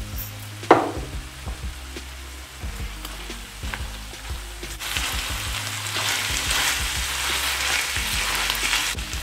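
Chicken pieces sizzling in tomato sauce in a stainless steel pot while a silicone spatula stirs them. There is one sharp clink near the start, and the sizzle grows louder about five seconds in.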